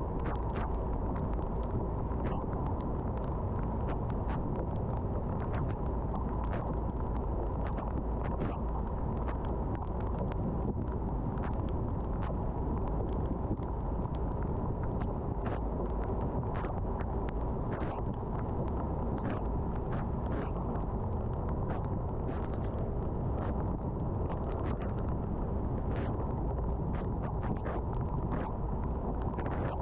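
Car driving on a wet road: a steady rush of road and engine noise, with scattered light ticks of raindrops hitting the car at irregular intervals.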